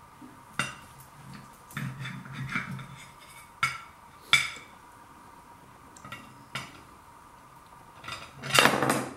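Knife and fork clinking and scraping against a plate as a burger is cut and its bun opened: a handful of sharp, separate clinks, then a longer, louder clatter near the end.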